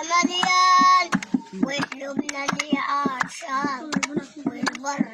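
A boy singing an old Sa'idi (Upper Egyptian) song, stretching long, wavering held notes. Under the voice runs a steady beat of sharp taps, about three or four a second.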